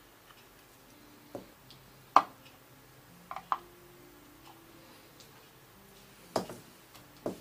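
Small sharp clicks and taps of steel tweezers against small wooden model-capstan parts as they are handled and set in place. There are about half a dozen scattered clicks, the loudest about two seconds in.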